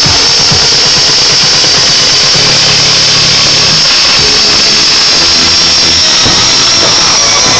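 Fireworks crackling in a dense, harsh hiss, with music from a nearby loudspeaker underneath. The music's bass notes change in steady blocks from about two seconds in, and the whole sound is overloaded and distorted.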